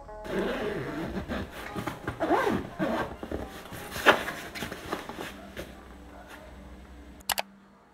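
Fabric backpack being handled and zipped shut: a zipper run with rustling of the padded fabric, then a sharp click about four seconds in and another brief click near the end.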